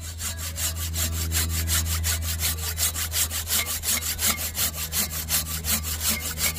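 Silky Bigboy folding pull saw cutting through a hardwood tree trunk, rasping in quick, even back-and-forth strokes.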